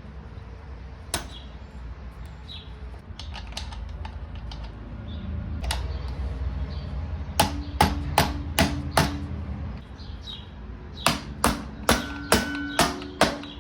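Two runs of sharp knocks, about five in quick succession, then after a short pause about six more, each with a brief metallic ring, over a low steady rumble.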